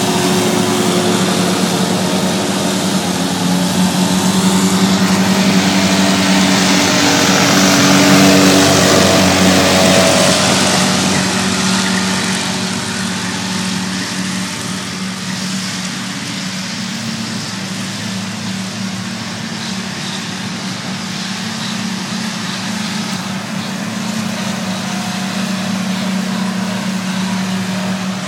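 Tractor engine running steadily while pulling a grass mower. The sound grows louder to a peak about eight seconds in, with a rushing hiss on top, then eases off and holds steady.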